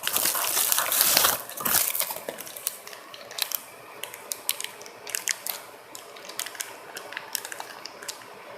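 Packaging being unwrapped from a new compressor check valve: a loud rustle for the first second and a half, then scattered crinkles and clicks.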